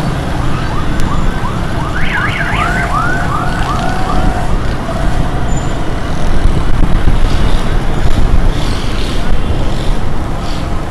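An electronic siren warbling in quick arching chirps, about three a second, for roughly the first four seconds, over the steady rumble of road traffic heard from a moving vehicle.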